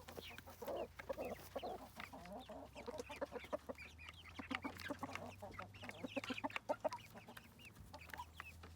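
Mixed flock of adult hens and young chicks: the hens clucking and the chicks peeping in many short, overlapping calls.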